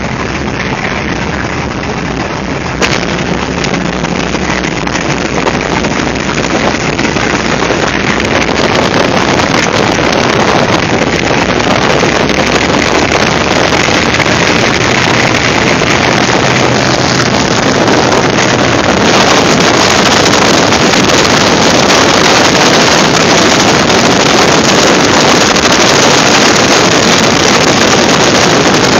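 North American T-28C Trojan's nine-cylinder Wright R-1820 Cyclone radial engine running with its propeller turning while the plane taxis, mixed with heavy wind rushing over the microphone. The noise grows steadily louder through the stretch.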